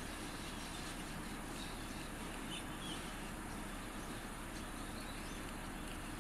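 Steady outdoor background noise with a low hum, with two or three faint short high chirps about two and a half seconds in.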